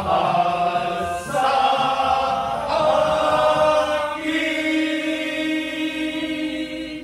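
A group of men singing the closing line of a Tagalog Christmas song, ending on a long held note that starts a little after four seconds in and stops at the end.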